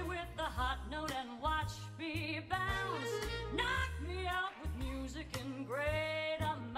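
Big-band jazz music playing: a melody line with vibrato and sliding notes, sung or played, over a steady bass line.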